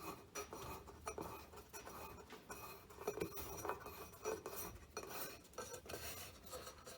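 Faint clicking and rattling of small hard parts being handled and fitted, with light knocks at irregular intervals.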